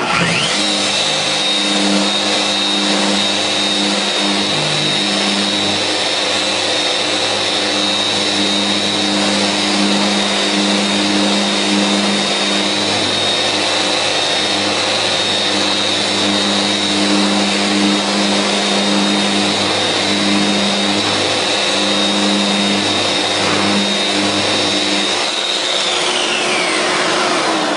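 Festool Rotex RO 125 dual-action sander with a 180-grit disc sanding a hardwood block, its dust extractor running through the hose. It spins up at the start into a steady high whine, with a lower hum that wavers as the pad works the wood, and winds down with a falling pitch near the end.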